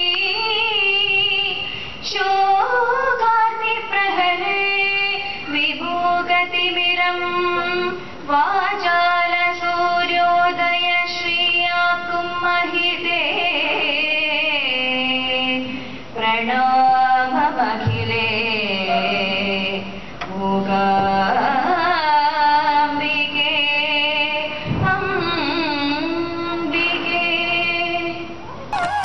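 A woman singing solo into a handheld microphone: a slow melody of long held notes with wavering ornaments, in phrases broken every few seconds by short pauses for breath.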